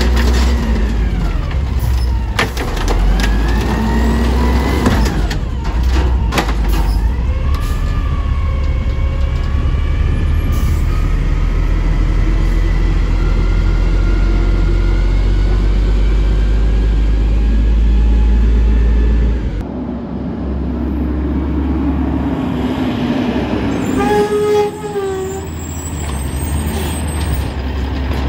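Automated side-loader garbage truck dumping a cart: the diesel engine runs loudly under load while the hydraulic lift arm makes a rising and falling whine, with a few sharp metal clanks as the cart is shaken out, then the truck moves off. After an abrupt change about two-thirds through, a second side-loader's engine runs more quietly and its arm whines again as it reaches out toward a cart.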